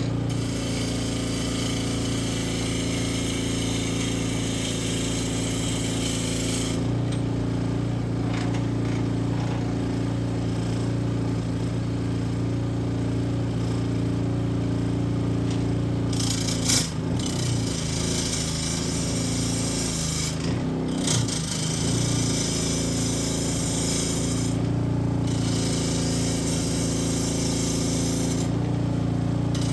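Electric power tool running steadily on walnut, a constant motor hum under a rasping cutting noise that fades and returns as the tool bites into the wood and eases off.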